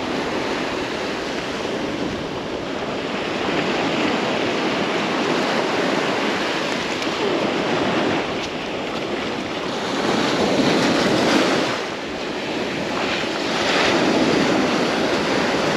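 Ocean surf washing up the beach in a steady rushing wash, swelling louder a couple of times as waves come in.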